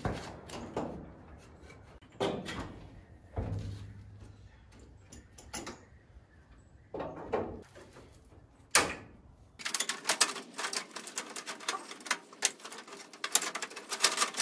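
Hands-on work at the front of a Nissan D21 pickup: the hood is opened and the grille is worked loose, giving scattered clicks and knocks. A sharp knock comes about nine seconds in, followed by a quick, dense run of clicking and rattling.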